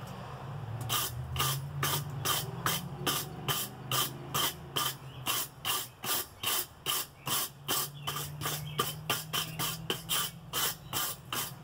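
Hand hammer striking red-hot steel on an anvil, about three even blows a second, starting about a second in. The blade is a railroad spike with a spring-steel edge being forge welded and drawn out.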